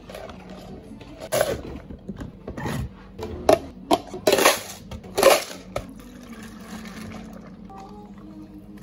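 Empty clear plastic cups being set down and shuffled into a row on a wooden counter: a run of light, hollow knocks and clatter over a few seconds, then softer handling.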